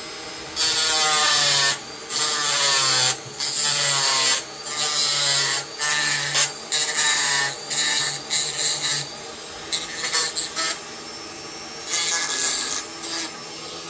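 Handheld rotary tool with a cutting disc cutting through a hard black plastic panel: the motor runs steadily and gives repeated bursts of harsh grinding each time the disc bites, its pitch falling under load in the first cuts.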